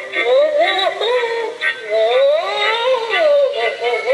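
An animated toy's built-in sound chip playing a song, a high sung voice whose melody slides up and down without a break.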